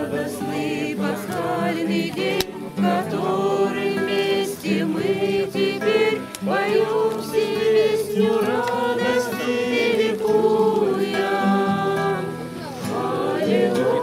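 A small mixed group of voices singing a Christian hymn together in Russian, with an acoustic guitar strummed along. The lines are sung in long held notes, with a short pause between phrases near the end.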